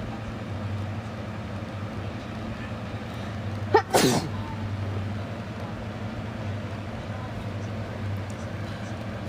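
A person sneezes once, about four seconds in: a brief voiced catch of breath, then the burst of the sneeze.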